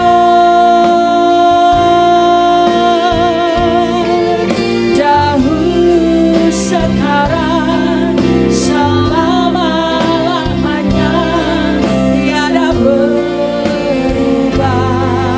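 Live worship band playing a gospel song. An electric guitar holds a long sustained lead note for the first few seconds, then women sing the Indonesian lyrics with vibrato over guitar, bass and drums.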